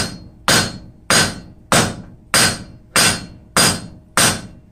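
A three-pound hand hammer strikes a red-hot mild-steel flat bar held on an anvil, about eight ringing blows at a steady pace of roughly one every 0.6 seconds. It is forging a chamfer on the end of the bar.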